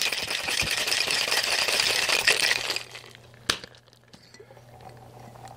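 Ice rattling hard inside a metal cocktail shaker being shaken for just under three seconds, then stopping, followed by one sharp click.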